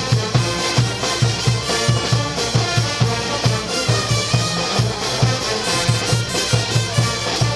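Brass band music, trumpets and trombones, over a steady bass-drum beat of about two strokes a second.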